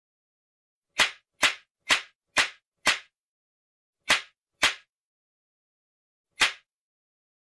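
Eight sharp slap sound effects with dead silence between them: five in a quick run about half a second apart, then two more, then a last one near the end.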